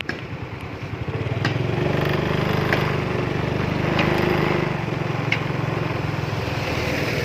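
Motor vehicle engine, most likely a motorcycle's, running close by and growing louder about a second in, with a few short sharp clicks over it.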